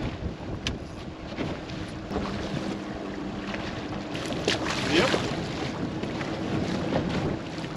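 Wind buffeting the microphone, with a faint steady low hum underneath. A short, louder burst comes about five seconds in.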